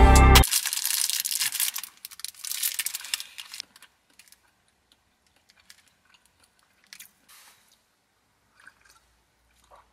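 Outro music cuts off abruptly half a second in; then a plastic food wrapper crinkles and rustles for about three seconds, followed by faint, scattered chewing sounds.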